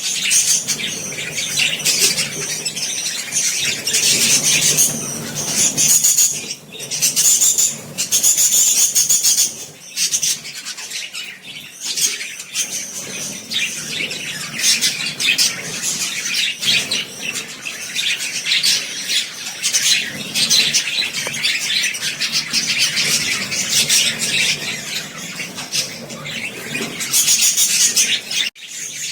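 Many lovebirds chattering together: a dense, continuous stream of high-pitched chirps and calls.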